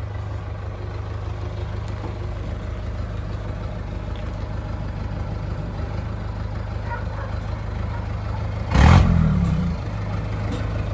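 Engine of an old utility vehicle running steadily at low revs while hauling a load of stones, with one louder, brief burst of noise about nine seconds in.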